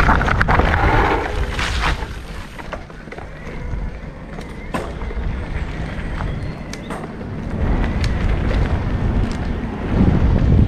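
KTM Macina Kapoho e-mountain bike riding over a dirt forest trail: the tyres roll and rumble over the ground, with scattered clicks and rattles from the bike over bumps and wind on the microphone. It is louder at the start and again near the end.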